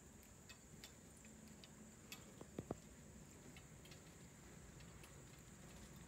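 Near silence with a faint steady high chirring of crickets, scattered faint ticks, and two soft taps close together about two and a half seconds in.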